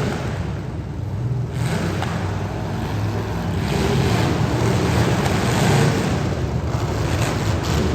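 Demolition derby car engines running steadily, with a rushing, wind-like noise over them.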